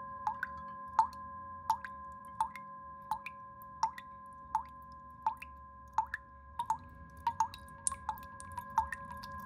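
Water-drop plops, each with a quick upward flick in pitch, falling about once every 0.7 seconds over a steady hum of a few held tones; from about six and a half seconds in the drops come faster and closer together.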